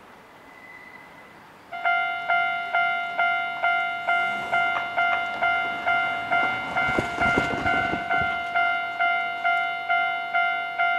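Japanese railway level-crossing warning bell starting up about two seconds in, then ringing a steady electronic ding about twice a second: the crossing alarm signalling an approaching train.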